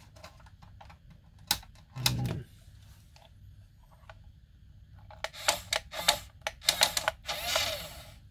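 Plastic clicking of a toy RC tank's handheld transmitter as its sticks and switches are worked, in a quick run of clicks late on. It ends with a short rasping whir of the tank's small motor and gears as the turret turns.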